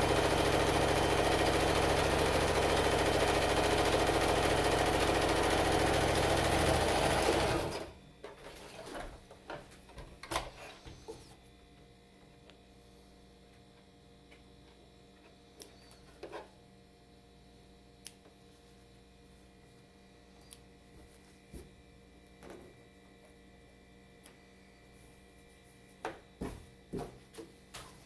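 Brother electric sewing machine stitching at a steady speed for nearly eight seconds, then stopping abruptly. After that come only faint scattered clicks and rustles as the thread ends are snipped with scissors and the fabric is handled, with a quick run of clicks near the end.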